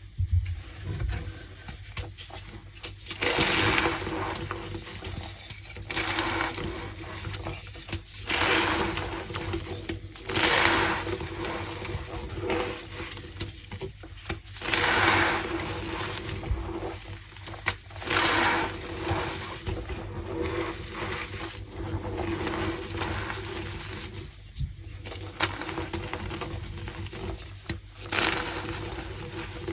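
Pasted, reformed gym chalk blocks being crushed by hand, crunching and squeaking in repeated bursts a second or two apart.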